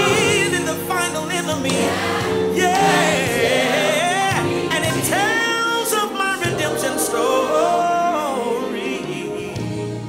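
Gospel choir singing over instrumental accompaniment, the voices held in long, wavering notes.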